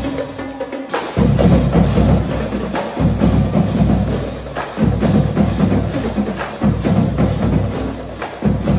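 Drumline playing a cadence on marching snare and bass drums, with sharp stick clicks over heavy bass-drum hits in a driving beat; the low drums drop out briefly in the first second, then come back in.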